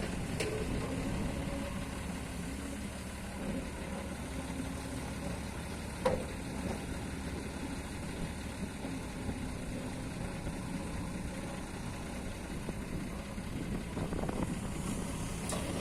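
Kobelco excavator's diesel engine running steadily at a low, even speed, with one sharp metallic clank about six seconds in.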